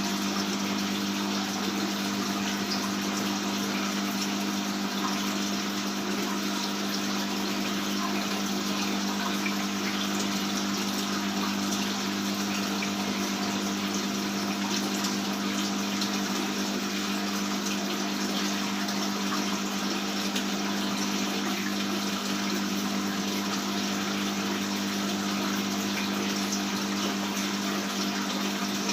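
Aquarium water pump running with a steady hum while water flows and splashes continuously.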